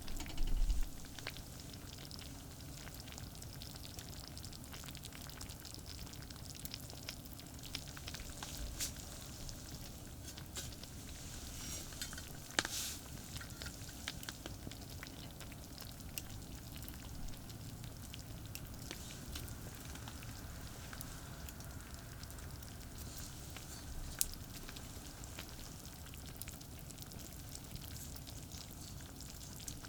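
Steady sizzling and crackling from food cooking over a charcoal campfire, with small pops throughout and one sharper crack about halfway through. A low hum of distant expressway traffic runs underneath.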